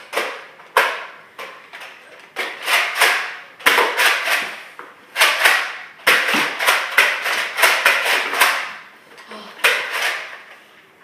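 Nerf blaster firing again and again, about twenty quick shots, each a short puff of air, coming fastest in the middle.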